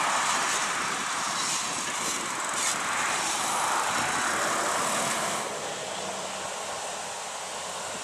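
Fendt 936 Vario and Fendt 714 Vario tractor engines running hard under heavy load while drawing a deep plough through the soil, a steady mechanical noise. About five and a half seconds in it becomes a little quieter.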